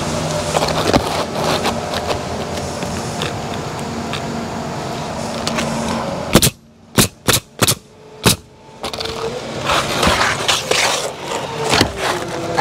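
Pneumatic coil roofing nailer firing five nails through asphalt shingles in quick succession, sharp separate shots over about two seconds, a little past the middle. Before and after, shingles scrape and rustle as they are handled and slid into place.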